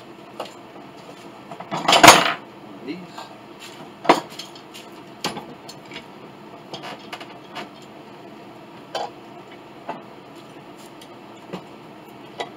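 Steel bar clamps being set and tightened on a wooden piano part: metal clinks and knocks, the loudest a clatter about two seconds in and a sharp knock about four seconds in, then scattered lighter clicks.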